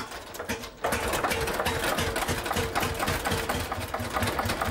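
Hand-cranked Allgaier vintage tractor engine, which has no starter motor, catching about a second in and then running with a fast, even clatter.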